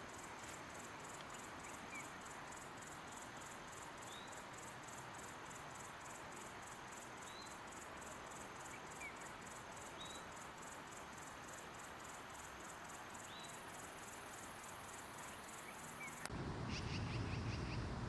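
Outdoor ambience of an insect chirping in quick, even, high-pitched pulses, with a bird giving short single chirps every few seconds over a steady hiss. About sixteen seconds in it cuts abruptly to a louder, low rumbling noise.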